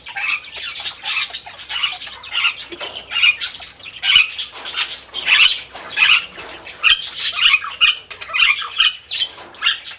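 Flock of Australian parrots chattering and squawking without pause: a dense stream of short, high chirps.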